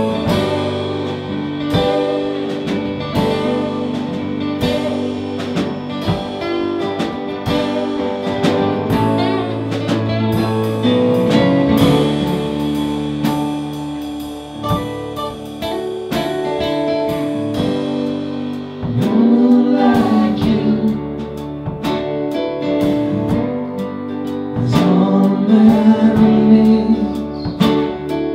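Acoustic full band playing an instrumental stretch of an Americana-style rock song: strummed acoustic guitar with wordless singing over it.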